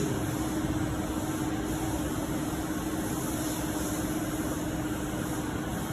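Steady hum of industrial machinery running, with a constant tone that drops out near the end.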